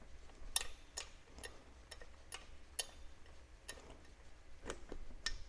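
Faint, irregular light metal clicks, about eight over five seconds, of bolts being handled and set against a TH350 transmission's four-wheel-drive adapter housing.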